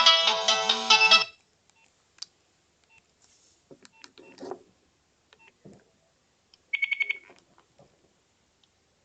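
A Nokia 5070 mobile phone's ringtone melody stops about a second in. Faint clicks follow, then a quick run of about six short high beeps near the middle, the phone's key tones.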